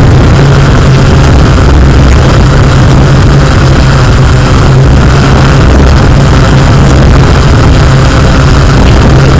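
Yuneec Q500+ quadcopter's motors and propellers running steadily as it hovers low over water: a loud, even hum.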